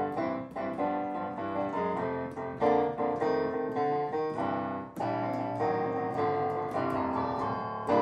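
Kawai electronic keyboard played with both hands in a piano voice through its built-in speakers: a bluesy run of chords and single notes. Sound coming from the speakers at power-on shows that the replaced power switch has cured the no-sound fault.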